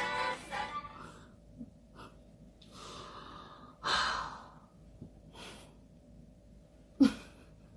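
A woman's hard breathy exhales and gasps, half a dozen short bursts with no voice in them, the loudest about four seconds in, as she laughs and catches her breath behind her hands. The tail of a guitar song cuts off at the very start.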